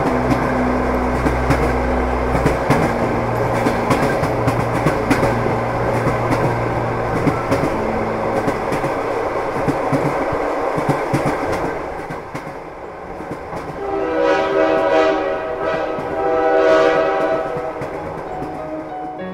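Freight train hauled by a diesel locomotive running past: dense clatter of wheels over the rail joints over a low engine drone. Then two horn blasts in the last few seconds.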